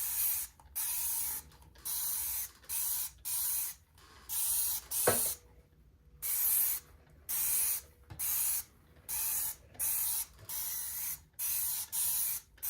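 Trigger spray bottle of dish soap squirted over and over in short hissing bursts, about one to two a second, with a single sharp click about five seconds in.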